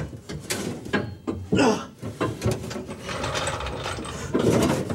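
Irregular clicks, knocks and scraping of metal as a fuel tank and its straps are worked up into place under a truck, with a louder stretch of scraping near the end.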